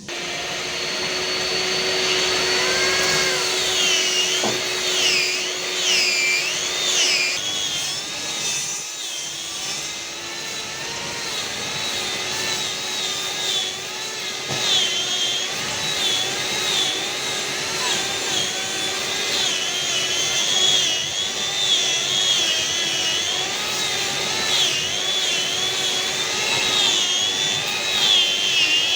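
Electric power sander running against the wooden body of a double-18-inch bass speaker cabinet, its high whine rising and falling about once a second as it is worked back and forth under changing load. It is sanding down the glued and filled joints before putty.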